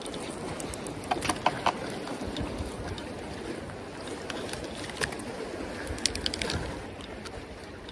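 Steady wash of sea water, with scattered light clicks and taps: four about a second in, one near five seconds and a quick cluster around six seconds.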